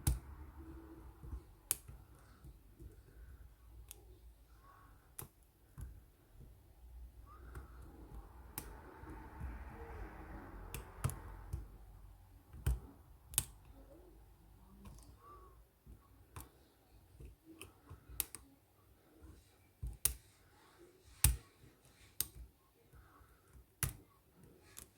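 Lock pick and tension wrench working the pins of a Lockwood marine padlock: irregular sharp clicks, spaced a second or so apart, as pins are lifted and set. A soft rustle of handling comes about a third of the way in.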